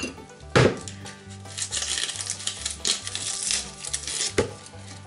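Dry onion skin crackling and rustling as it is peeled off with a knife over a plastic bowl, with a sharp knock about half a second in as the bowl is set down on a wooden cutting board and another knock near the end. Background music with a low bass line runs underneath.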